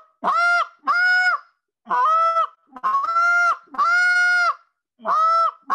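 Short reed goose call blown in a series of moans. Each drawn-out honking note breaks up from a low grunt into a steady high tone and drops off at its end. There are about seven notes in small groups, with short gaps between them.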